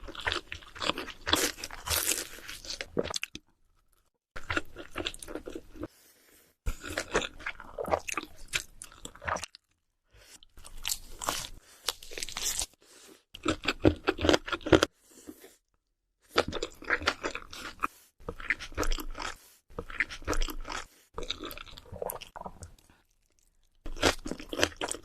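Close-miked crunching and chewing of crisp food, dense crackling bites, in short stretches that cut off abruptly to silence several times between edited clips.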